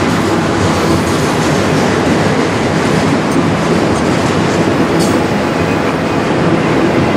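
Freight train of autorack cars rolling past at close range: the steady, loud noise of steel wheels running on the rails.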